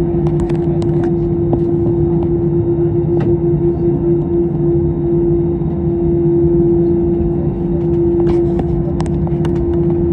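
Airbus A321neo jet engine noise heard inside the cabin: a loud, steady drone with a constant hum over a low rumble. Light clicks and rattles are scattered through it, most near the start and about eight seconds in.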